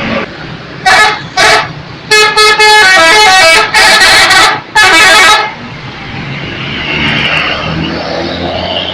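Indonesian bus 'telolet' musical horn: two short toots about a second in, then a quick run of stepped notes and two longer blasts, stopping about five and a half seconds in. After that, a vehicle engine and street noise.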